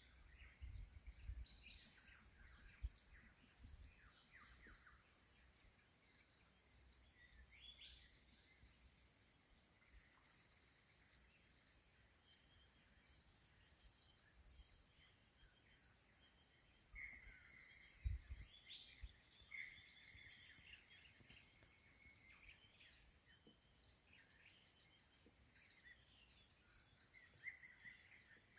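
Faint birdsong from several birds in riverside bush: many short chirps and whistles, with a few longer held whistled notes about two-thirds of the way through. A low bump about two-thirds in.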